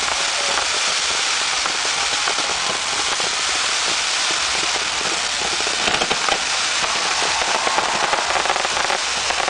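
Fireworks crackling in a dense, continuous stream of rapid pops and sizzles, with a few sharper pops around six seconds in.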